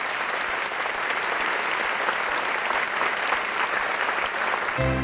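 Concert audience applauding, many hands clapping at a steady level; right at the end, sustained music chords cut in over it.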